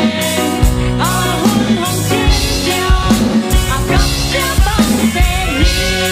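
A live worship band playing a song: several voices singing the melody together over electric guitar, bass guitar and a drum kit beating steadily.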